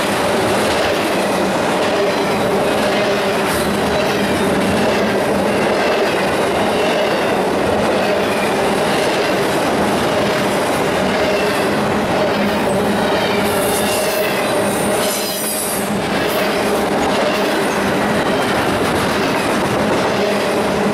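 Double-stack container well cars of a Union Pacific freight train rolling past: a steady wheel-on-rail rumble and clatter with a faint wavering wheel squeal, and a brief high-pitched squeal about two-thirds of the way through.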